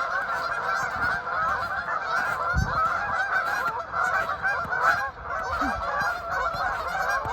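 A large flock of geese honking, many calls overlapping into a continuous chorus.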